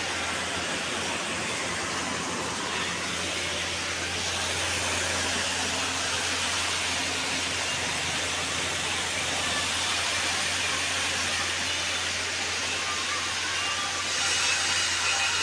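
Steady rushing noise with a low hum under it, a little stronger near the end.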